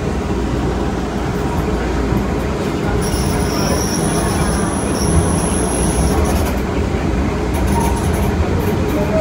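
MBTA Green Line light-rail train running on the track with a steady rumble. About three seconds in, a high steady squeal joins it for about three seconds, then stops.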